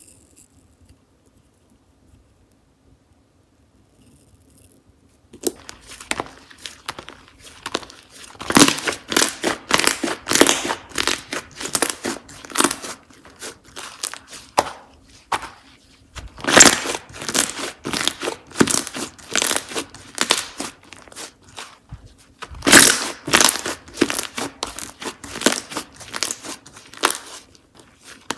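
Slime being squished and stretched by hand, giving off dense crackling, popping clicks that start about five seconds in and come in louder clusters.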